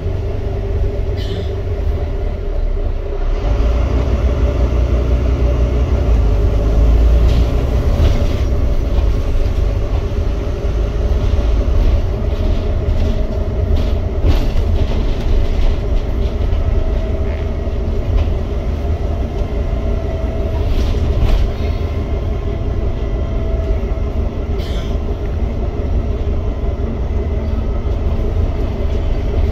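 Volvo B9TL Wright Gemini double-decker bus on the move, heard from the upper deck: its nine-litre straight-six diesel and the road make a steady deep rumble that swells about four seconds in. A faint wavering whine runs under it, with scattered knocks and rattles from the body.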